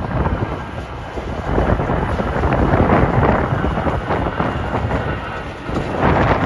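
Strong, gusty wind buffeting the microphone: a heavy low rumble that swells and eases.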